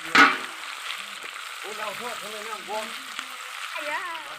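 Chicken meat frying in hot oil in a pan: a steady sizzle, with a sudden loud burst of sizzling just after the start.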